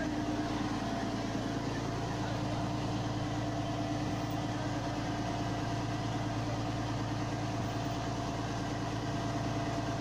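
Fishing boat's engine running steadily under way, an even, unchanging drone.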